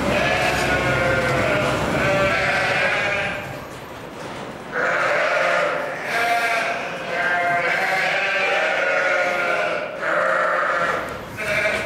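A flock of sheep bleating, several long calls overlapping one another with short gaps between them and a brief lull about four seconds in.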